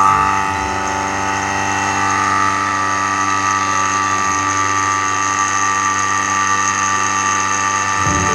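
Electric vacuum pump running steadily, drawing the air out of a vacuum chamber. It is a constant, even hum.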